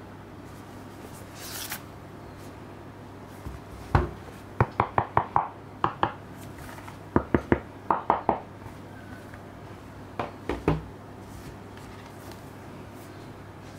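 Gloved hands handling the cardboard packaging of a Blu-ray box set: a brief sliding rustle, then a series of sharp taps and clacks in quick clusters as the pieces are pulled out and set down on a table, starting about four seconds in and ending around eleven seconds.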